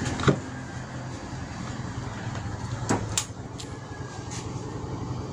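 Two sharp clicks about three seconds apart, the first one the loudest, over a steady low background hum.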